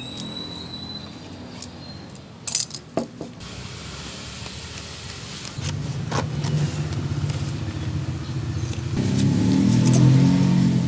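GY6 scooter engine running at idle, getting louder about halfway through and again near the end, with a few sharp metallic clicks a few seconds in.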